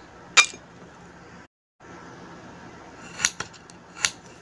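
Kitchen knife cutting carrot sticks on a ceramic plate, the blade striking the plate with sharp clinks: once about half a second in and twice near the end.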